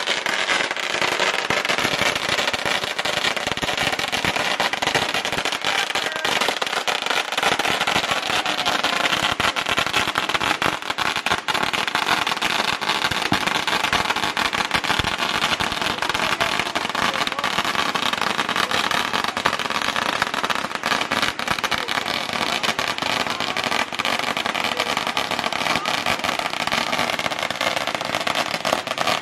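Fireworks going off in a dense, continuous crackle of many rapid small pops, steady for the whole stretch.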